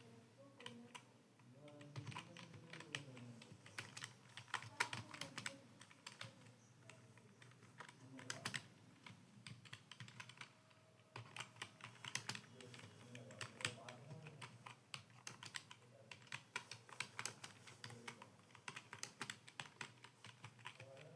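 Typing on a computer keyboard: rapid, irregular keystroke clicks in runs, thinning out briefly about halfway through.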